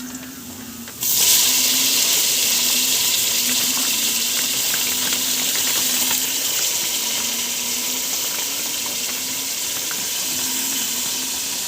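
Raw chicken dropped into hot oil with sautéing ginger, onion and garlic: a loud sizzle starts suddenly about a second in and carries on steadily, easing a little, with small crackles of spattering oil.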